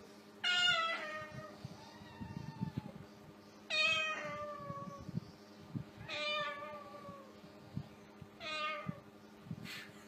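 Four drawn-out meows, each falling in pitch, spaced a couple of seconds apart.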